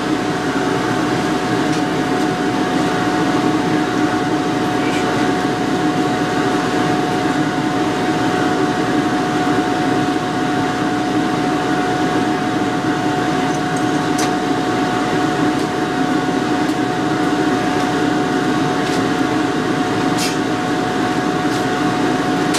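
Two-stroke outboard motor running steadily at a constant speed, with a few faint clicks over it.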